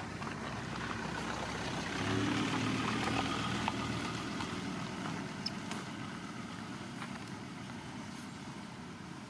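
A motor vehicle's engine running, growing louder about two seconds in and then slowly fading.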